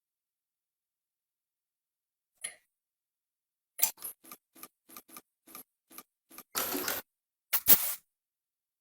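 A run of sharp clicks, about three a second, then a short scraping rush and two more clicks near the end: hand tools working on metal parts.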